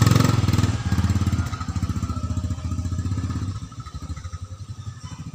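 Small motorcycle engine running as the bike pulls away, its fast, even beat loud at first and fading as it moves off, dropping away from about three and a half seconds in.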